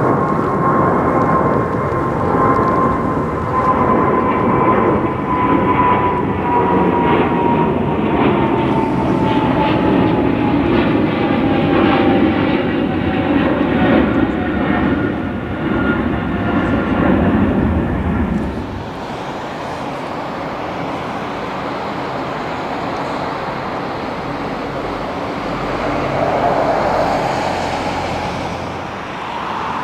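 Twin-engine widebody jet airliner climbing out overhead after takeoff: loud jet engine noise with a fan whine that slowly falls in pitch as the aircraft passes and moves away. About 18 seconds in it gives way abruptly to a quieter, steady rumble.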